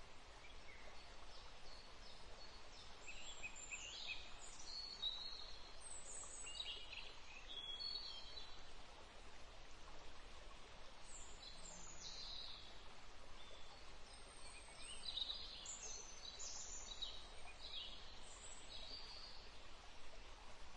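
Faint birds chirping in short clusters of quick high calls over a steady background hiss, in two busy stretches: one starting about three seconds in and another from about eleven seconds.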